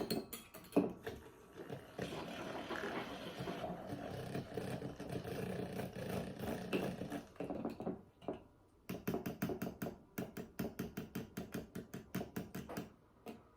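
Coffee being mixed in a glass: a steady rough hum with scraping for several seconds, then a spoon clinking rapidly against the glass, about four or five strikes a second, as the coffee, toffee crunch chocolate, caramel and cinnamon are stirred together.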